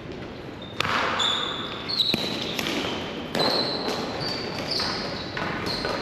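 Ball hockey play on a court floor: shoes squeak sharply several times, and sticks and the ball clack now and then, with a couple of sharp hits in the first two seconds.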